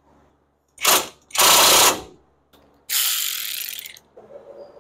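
Cordless ratchet spinning a nut onto the lower strut through-bolt in three runs: a short one about a second in, a longer, louder one just after, then a third near the three-second mark that winds down.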